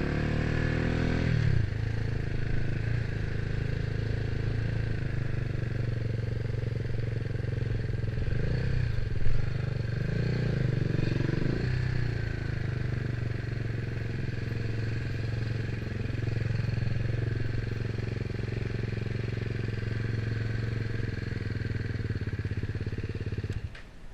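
BMW G310R's 313 cc single-cylinder engine running at low revs with a few short rises in revs, then switched off near the end. A brief loud bump about nine seconds in.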